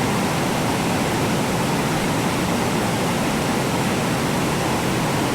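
Steady rushing of a stream's flowing water, an even hiss at a constant level.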